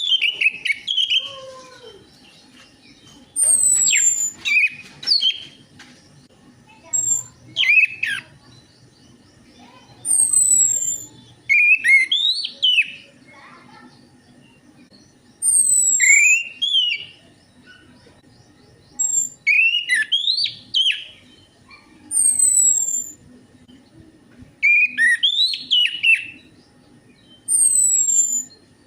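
Orange-headed thrush singing: short, varied whistled phrases every few seconds with quiet gaps between, most opening with a thin, high falling whistle.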